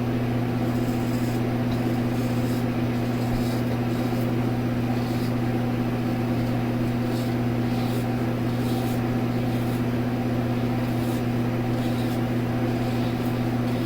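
A steady low hum from a running electrical appliance or fan motor, even and unchanging throughout, with a few faint light ticks.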